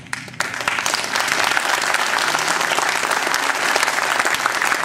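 Audience applauding: many hands clapping, starting about half a second in and holding steady.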